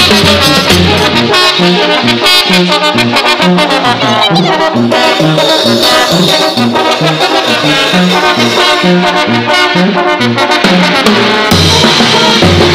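Live Mexican brass band (banda de viento) playing loudly, its brass carrying the tune over a steadily stepping bass line. The low end and drums fill out again near the end.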